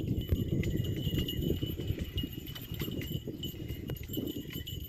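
Footsteps crunching and crackling through dry, flattened reed stalks, in an irregular run of steps.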